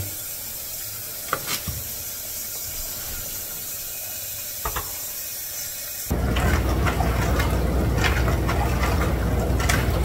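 Frigidaire dishwasher running a heavy wash cycle: a steady hiss of water with a couple of light clicks, then about six seconds in the wash motor comes on with a steady low hum and the rush of spraying water.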